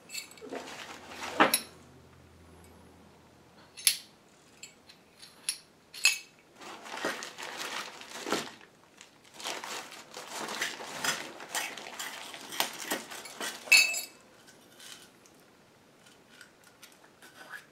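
Small metal tin of Remington percussion caps being worked open by hand: sharp metallic clicks and clinks, with a stretch of scraping and rattling handling in the middle.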